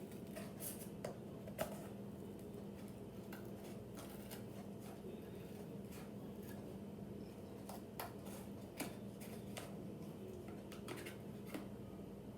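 Sharp scissors cutting through thick cardboard: scattered snips and crunches, with a few sharper snips about 8 and 9 seconds in, over a steady low hum.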